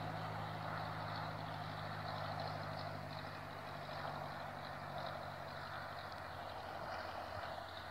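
Distant light propeller aircraft's engine droning with a low steady hum over a hiss of open-air noise, fading out about six seconds in.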